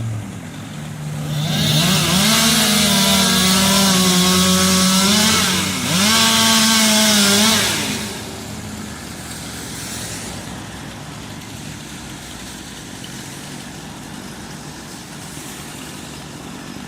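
Two-stroke chainsaw revved to full throttle about a second and a half in and held high, with a brief dip around six seconds, then let off just before eight seconds. A quieter steady engine sound runs on after it.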